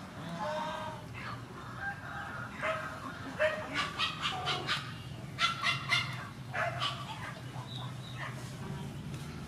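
Chickens clucking, a run of short calls strongest in the middle.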